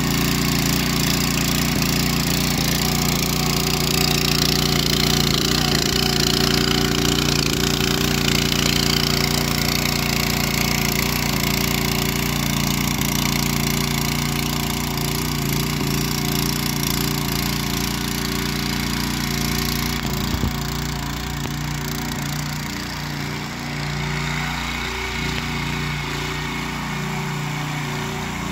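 Ruris 751KS motor cultivator with eight tilling blades, its engine running steadily under load as the tines churn through soil. After about twenty seconds the engine note gets a little quieter and wavers in pitch.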